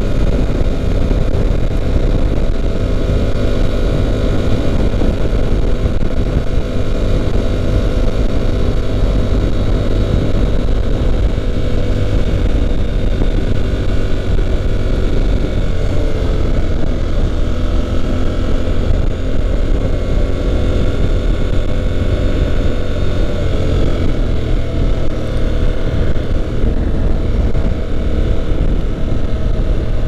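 Honda NC750X parallel-twin engine running at a steady cruise, with wind and road noise from riding.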